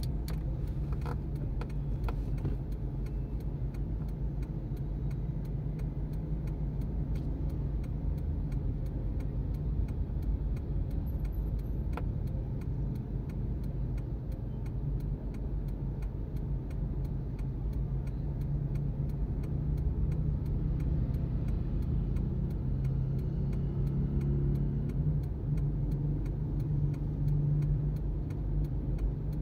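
Steady low rumble of idling traffic heard from inside a car cabin, growing a little louder in the second half as more motorbikes pull up, with a faint regular ticking throughout.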